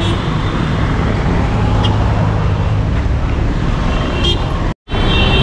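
Busy city street traffic: a steady rumble of passing car engines, with short car horn toots at the start and near the end. The sound cuts out for an instant near the end.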